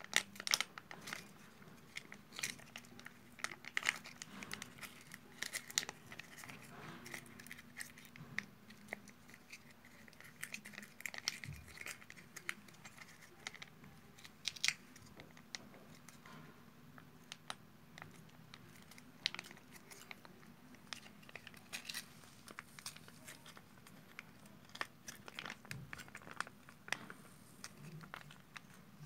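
Foil Whiskas wet cat-food pouch crinkling in the hand as it is squeezed over a glass bowl, a steady run of small irregular crackles and clicks.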